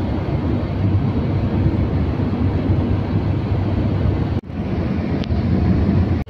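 Steady road and engine noise inside a moving car's cabin at highway speed, with a low hum. The sound drops out for a moment about four seconds in.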